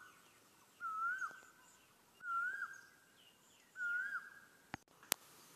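A bird calling repeatedly: three whistled calls about a second and a half apart, each a held note that dips and then falls away. Two sharp clicks follow near the end.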